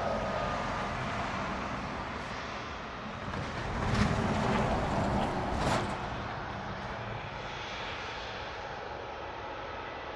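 Airliner engine noise, a steady rushing sound that swells louder for a couple of seconds about four seconds in.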